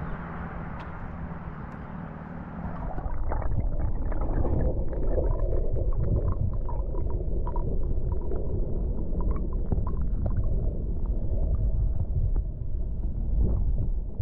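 River water heard through a submerged GoPro: a muffled, deep rumble of moving water with many small scattered clicks and crackles. It grows louder about three seconds in.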